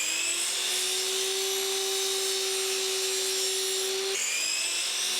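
Power saw motor running at speed with a steady whine, winding up in pitch at the start and again about four seconds in, while the miter cuts are made.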